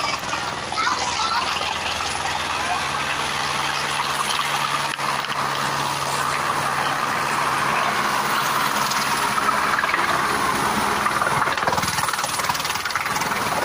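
Light helicopter's rotor and engine running steadily as it comes in and lands, with a constant low hum under a rushing noise that grows louder as it nears the pad.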